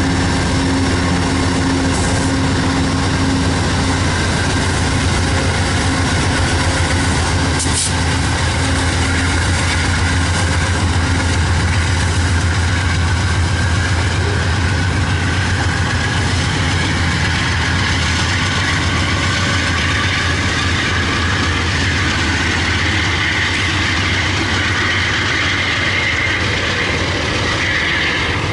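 Amtrak passenger train's diesel locomotives running as they pull away, with a steady low engine drone. In the second half the bilevel passenger cars rolling past add a growing hiss of wheel and rail noise.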